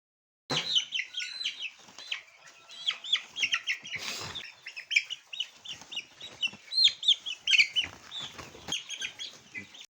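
A flock of six-week-old chickens peeping and chirping, many short downward-sweeping calls overlapping, with a brief rustling burst about four seconds in. The sound starts abruptly about half a second in and cuts off at the end.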